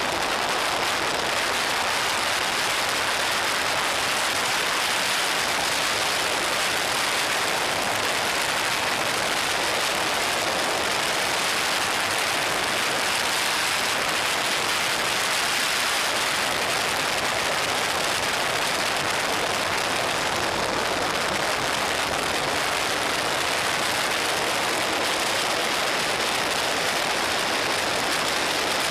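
Steady rush of wind over an action camera's microphone on a motorcycle riding at road speed, an even hiss that never lets up and covers the engine.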